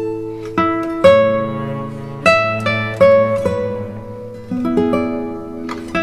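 Background music: an acoustic guitar plucking a slow melody, each note struck and left to ring out.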